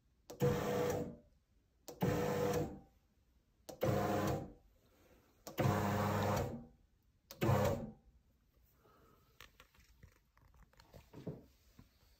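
Silverson L5M-A high shear laboratory mixer's motor and rotor run in five short bursts about two seconds apart, each starting abruptly with a steady whine and dying away within about a second. After the fifth burst come only faint clicks.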